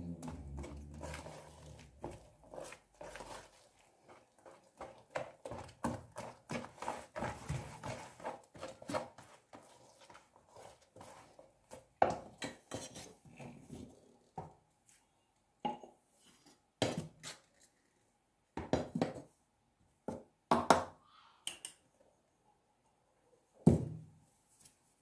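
Wire dough whisk stirring stiff bread dough in a plastic tub, clicking and scraping fast, as the dough is starting to come together. In the second half the sound turns into separate knocks, the loudest near the end.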